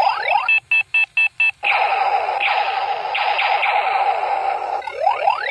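Battery-powered toy gear gun playing its electronic sound effects. A string of rising laser-like zaps is followed about half a second in by about six short beeps, then a steady buzzing blast for about three seconds, then the rising zaps return near the end.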